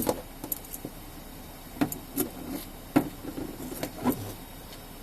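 A few scattered light knocks and rubbing sounds, the strongest right at the start, then five more spread over the following seconds, over a low steady background.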